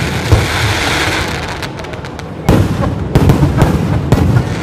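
Aerial fireworks shells bursting overhead: a sharp bang about a third of a second in, then a stretch of fainter crackling, then a quick run of bangs from about two and a half seconds on.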